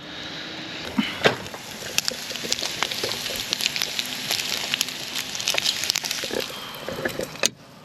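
Bacon sizzling and crackling in a frying pan, a steady hiss with many sharp spits and pops. It cuts off suddenly near the end.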